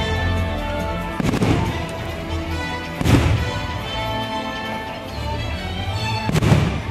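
Aerial fireworks shells bursting three times, a bit over a second in, about three seconds in and near the end, each bang trailing off in a rumbling echo, over steady music.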